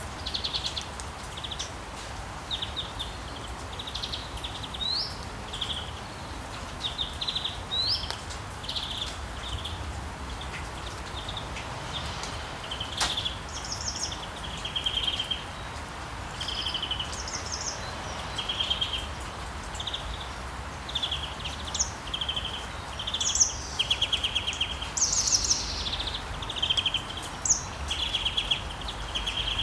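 Small songbirds chirping, with short trilled calls repeating every second or so and a few higher rising notes, over a steady background hiss.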